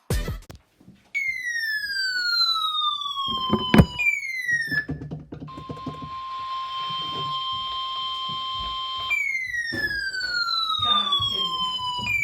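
Electronic emergency alert sounds: siren-like tones that fall in pitch over about three seconds, each followed by a short falling chirp. In the middle a steady single-pitch warning tone plays over radio static for about three and a half seconds, matching the NOAA Weather Radio warning alarm tone. There are one or two knocks about a third of the way in.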